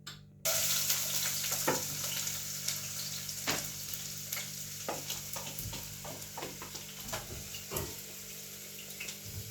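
Food dropped into hot cooking oil in a pot: a sudden loud sizzle about half a second in that gradually dies down, with the scrape and knock of a spoon stirring it.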